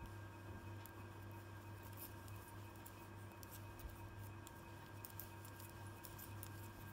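Faint, irregular clicking of knitting needles tapping against each other as stitches are worked, over a steady electrical hum.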